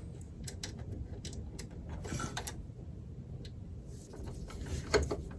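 Scattered light clicks and taps of small PC parts being handled, with a short cluster about two seconds in and more near the end, as CPU cooler mounting brackets are tried for fit.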